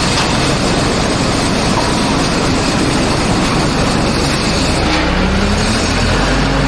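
Mobile diesel wood chipper running loud with a dense rushing, grinding noise as it chips wood. About five seconds in the noise eases and the diesel engine's steady low hum comes through.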